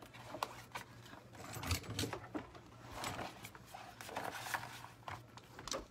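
Scattered light knocks, clicks and rustling of hands handling things on a tabletop while a hair dryer is picked up; the dryer is not yet running.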